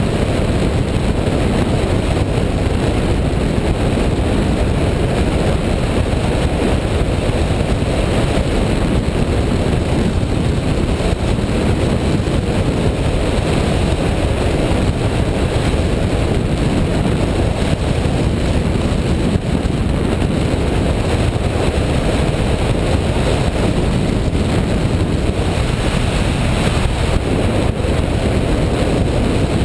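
Steady wind rush over the microphone of a camera mounted on a hang glider's wing in flight, a constant low rumbling roar of airflow.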